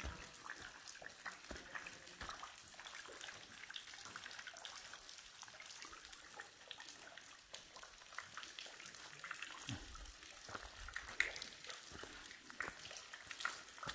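Water dripping and trickling from a sandstone rock overhang onto wet ground: a faint scatter of many small, irregular drips, with a few dull low thumps about two-thirds of the way through.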